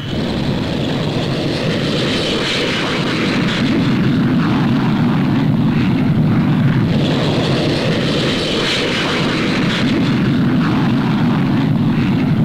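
Avro 707A delta research jet's single Rolls-Royce Derwent turbojet at takeoff power as it leaves the runway and climbs away: a continuous, steady engine noise that grows a little louder about three seconds in.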